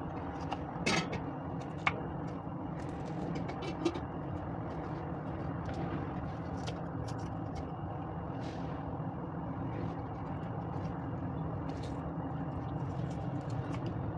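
Small kitchen knife knocking and scraping on a wooden cutting board as red chillies are slit and seeded: a few light, sharp knocks, the clearest in the first four seconds, over a steady low background hum.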